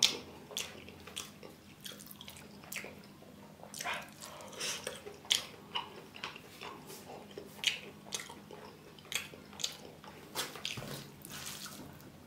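Close-up eating sounds: wet chewing and mouth smacks in an irregular string of short, sharp clicks, along with a hand squishing and mixing rice on a steel plate.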